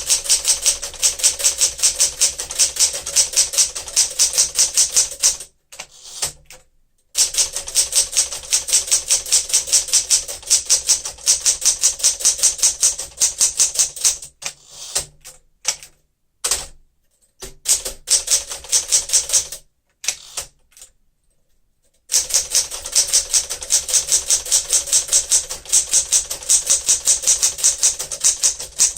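1963 Smith-Corona Sterling manual typewriter being typed on: fast runs of key strikes, several a second, broken by short pauses about six, fifteen and twenty seconds in.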